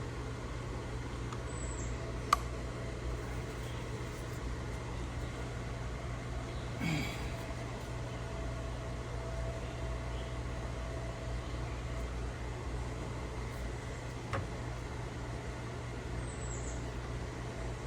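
Steady low background hum, with one sharp click about two seconds in and a faint tick later on.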